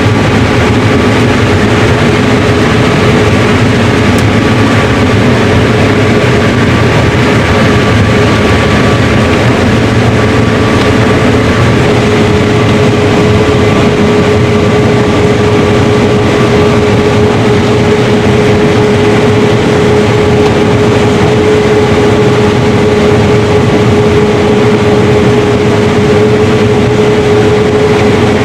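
Combine harvester running steadily while harvesting corn, a constant heavy machinery drone with a steady whine that edges slightly higher in pitch partway through.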